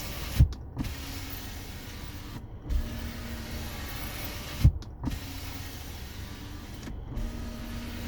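Kia K5 power window motor driving the door glass up and down over and over, with a steady whirr and the glass rubbing in its seals, stopping with a thump at each end of travel about every two and a half seconds. The glass is being cycled repeatedly to wear in the seals and cure its scraping squeak, which is starting to fade.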